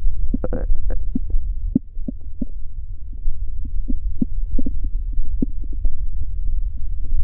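Stomach growling and gurgling heard up close: a constant deep rumble with many short gurgling pops scattered through it, and one longer bubbling gurgle just under a second in.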